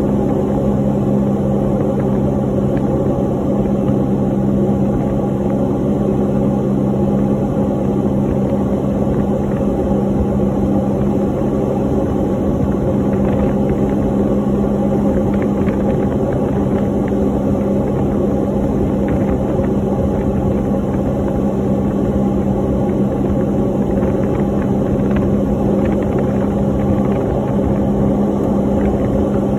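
Steady drone of an aircraft's engines heard inside the cabin in flight, with a strong, constant low hum.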